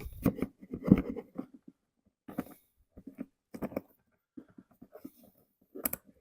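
Scattered light clicks and knocks of small-engine parts being handled, most of them in the first second or so, as the mower's emptied plastic gas tank is set back into place.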